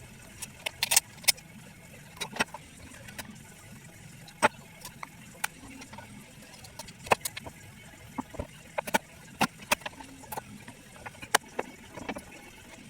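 Irregular sharp clicks and knocks, like tools and metal parts being handled during work on a car.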